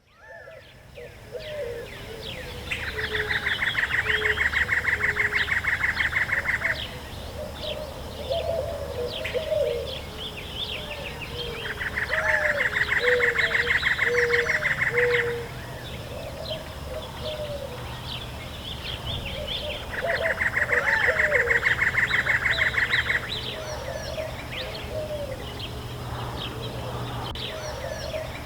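A nature soundscape of many birds chirping and calling, with short high calls and lower warbling notes. Three times a loud, rapid pulsing trill of about three and a half seconds rises over them.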